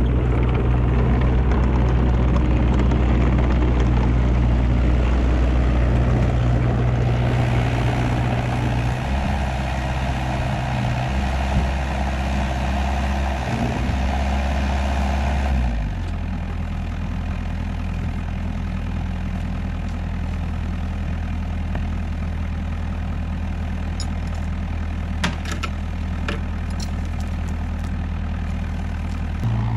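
Kubota KX121-3 mini excavator's diesel engine running under hydraulic load while handling a log, then dropping to a steadier, lower idle about halfway through. A few sharp metal clinks from a log chain near the end.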